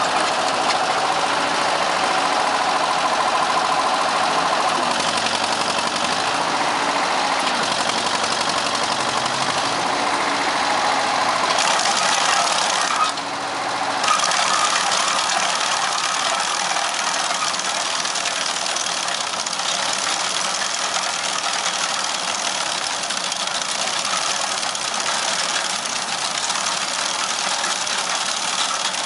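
Engine of a Case tracked trencher-backhoe running steadily, with a brief dip in level about halfway through.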